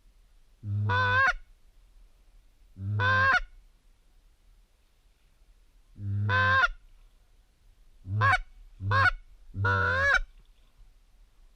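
Loud waterfowl honking calls: three long, drawn-out calls spaced a couple of seconds apart, then three shorter calls in quick succession near the end.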